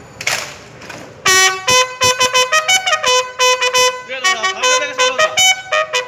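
Bugle sounding a salute call: short, clipped notes on a few fixed pitches in quick succession, starting about a second in.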